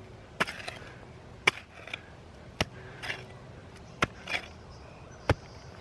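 Steel blade of a folding survival shovel chopped down into hard ground, five sharp strikes about a second apart, several followed by a short gritty scrape of dirt.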